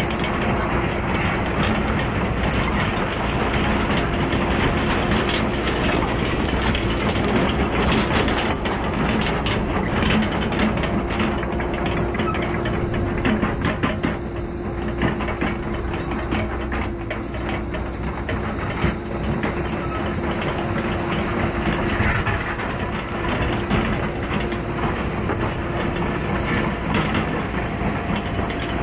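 Cat 314E excavator working a pile of rock and soil: the engine and hydraulics run steadily under a held whine, with frequent metallic clanks and rattles from the machine and the rock.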